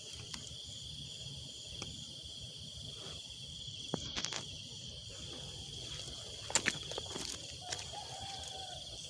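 A steady, high-pitched chorus of night insects trilling, like crickets, with a few short knocks and rustles from footsteps and handling on the bank, the sharpest about four and six and a half seconds in.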